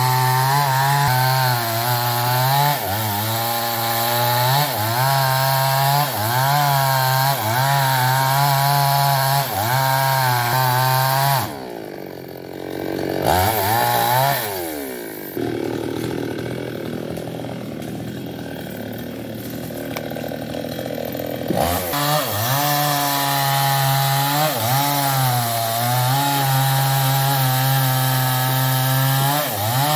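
Two-stroke petrol chainsaw, a New West 588, cutting through a ketapang trunk at full throttle, its pitch sagging and recovering about once a second as the chain bites. About eleven seconds in the throttle drops off, with a short rev, and the saw runs slower and quieter for several seconds before going back to full-throttle cutting a little past the twenty-second mark.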